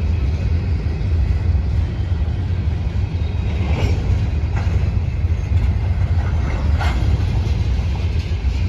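Florida East Coast Railway freight train rolling past, its cars' wheels making a steady low rumble on the rails, with a few sharper knocks about four and seven seconds in.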